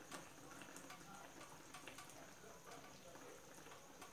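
Near silence, with the faint bubbling of sausage pieces in sauce simmering in a frying pan: scattered small pops over a soft hiss.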